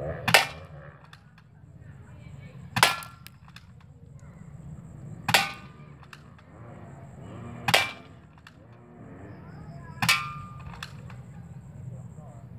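Spring-powered SKYMA SM1003C airsoft AK-47 firing five single shots, each a sharp crack with a brief ring, about two and a half seconds apart, the gun cocked by hand between shots.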